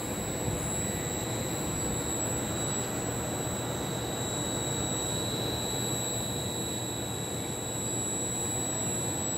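Steady noise of a Trenitalia double-deck regional train beside the platform, an even rumble with a constant high-pitched whine over it.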